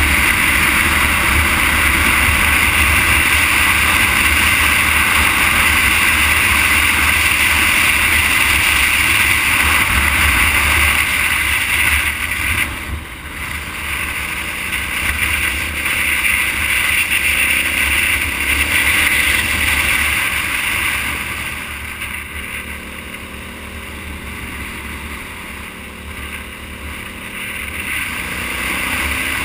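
Wind rushing over the microphone of a camera moving along an asphalt road, with a low road rumble beneath. The noise eases briefly about 13 seconds in and again for several seconds near the end.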